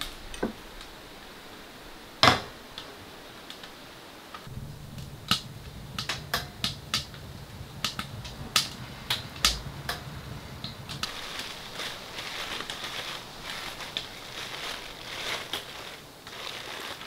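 Sharp, irregular crackles and pops of a wood fire in a portable tent stove, with a low hum under them for several seconds in the middle. From about eleven seconds a softer, hissy rustle takes over.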